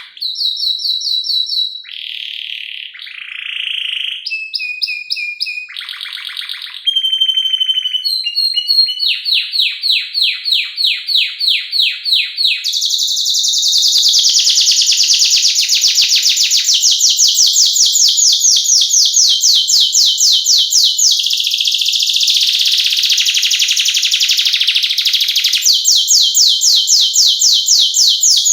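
Domestic canary singing a varied song: a string of short, high whistled phrases changing every second or two, then from about nine seconds in long, fast rolling trills of rapidly repeated notes.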